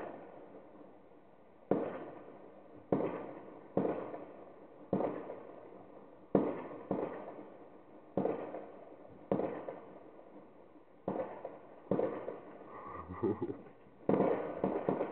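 Fireworks going off in many places: a dozen or more sharp bangs at irregular intervals of about a second, each fading away over about a second.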